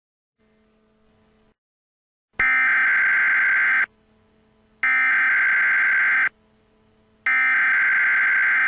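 Emergency Alert System SAME header: three identical electronic data bursts, each about a second and a half long with about a second between them, starting a couple of seconds in. These are the coded header that opens a new emergency alert.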